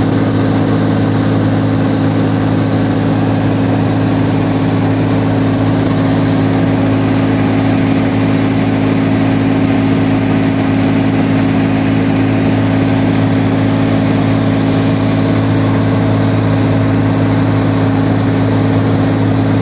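Small airplane's engine and propeller running at a steady cruise, a constant loud drone with a deep hum, heard from inside the cabin.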